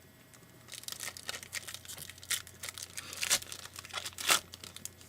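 A 2012 Panini Prizm Football card pack's wrapper being torn open and crinkled: a dense run of crackles, with two sharper snaps near the end.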